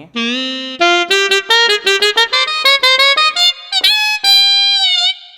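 Roland E-A7 arranger keyboard playing one of its saxophone voices: a phrase of quick short notes climbing in pitch, ending in a long held note near the end.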